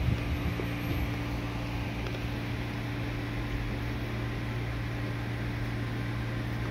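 Semboku Rapid Railway 9300-series electric train standing at the platform, its underfloor equipment giving a steady hum made of a low drone and a higher tone. A few light knocks in the first second.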